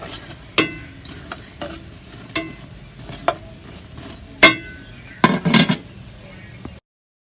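Festivals frying in oil in a pot with a faint steady sizzle, while a metal utensil knocks against the pot about once a second, several quick knocks near the end. The sound stops suddenly shortly before the end.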